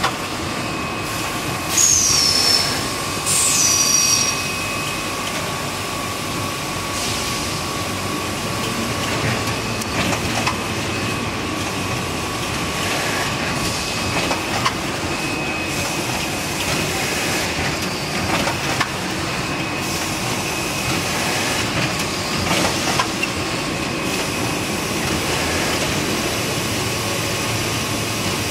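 Toilet-paper roll wrapping and bundling machine running, a steady mechanical clatter with a thin steady whine. Two short high squeals fall in pitch early on, and occasional clacks come from the moving mechanisms.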